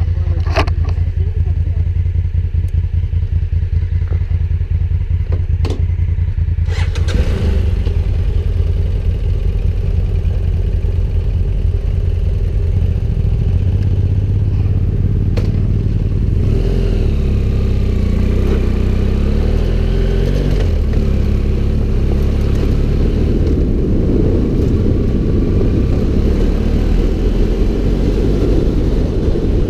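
An adventure motorcycle's engine runs steadily under way as a continuous low drone. Its note rises and falls a few times past the middle.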